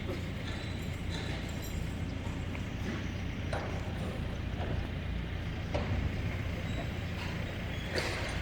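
Engine running with a steady low rumble, with scattered clicks and knocks over it.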